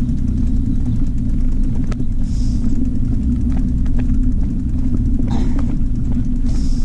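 Steady low rumble of wind and riding noise on the camera's microphone as it moves along, with two brief hisses, one about two seconds in and one near the end.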